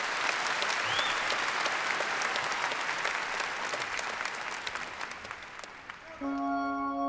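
An audience applauding, with a rising whistle about a second in; the clapping thins out and dies away. About six seconds in, music starts with long held chords.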